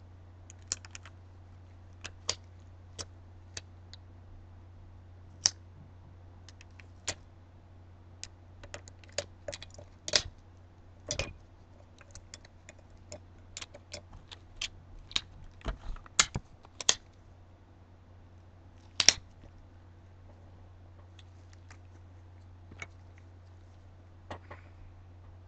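Irregular light clicks and taps from gloved hands handling a wine glass and small painting supplies, busiest in the middle, over a low steady hum.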